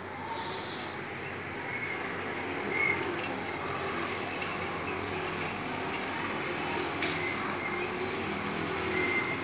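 Steady background noise with a few faint, short, high chirps and a faint click.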